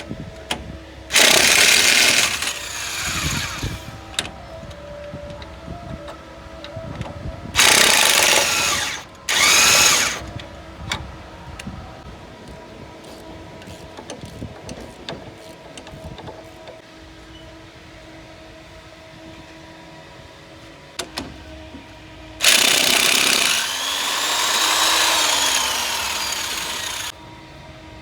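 Power tool, by its hammering an impact wrench, run in four bursts: three short ones in the first ten seconds and a longer one of about five seconds near the end. It is undoing bolts on a car's front suspension, with lighter clanks of tools on metal between the bursts.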